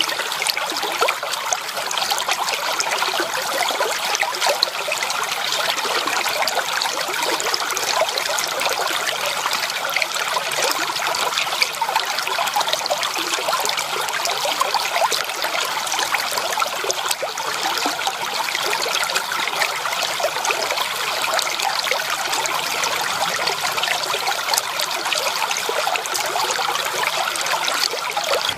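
A small creek flowing steadily, a continuous trickling, babbling rush of water with fine bubbling splashes.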